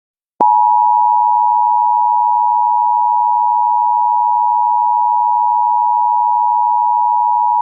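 Emergency Alert System attention signal: two steady sine tones at 853 and 960 Hz sounding together, starting about half a second in and held without change. It marks the start of an emergency alert broadcast.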